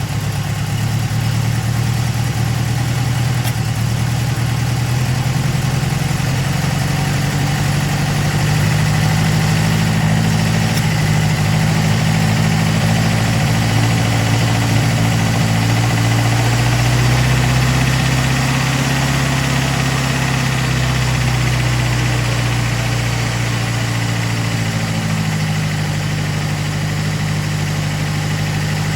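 Datsun 510 Bluebird's L16 four-cylinder engine on Solex carburettors, idling steadily. The idle speed drifts a little, dipping slightly in the middle and picking up again near the end.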